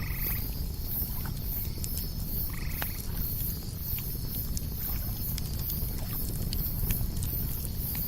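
Campfire crackling with scattered small pops over a low steady rustle. A frog croaks twice in short buzzy calls, once at the start and again about two and a half seconds in, over a high, evenly pulsing chirr.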